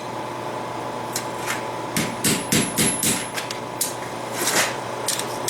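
Hand hammer striking steel on an anvil: scattered blows, with a quick run of about four a second in the middle, each with a short metallic ring, over a steady hum.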